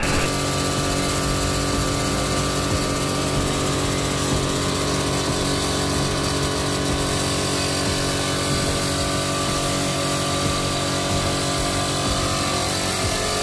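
A motor running steadily: an even mechanical drone made of several steady tones, with no change in speed.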